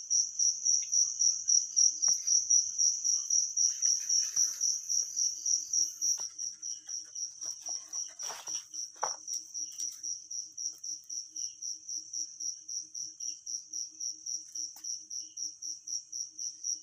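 Cricket chirping steadily, a high chirp repeated about three times a second, a little quieter after about six seconds.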